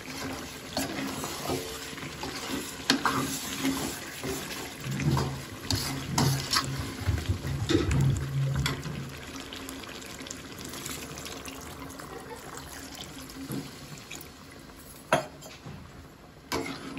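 Water being poured into a steel kadai of chicken curry, which is then stirred with a metal ladle that knocks and scrapes against the pan now and then.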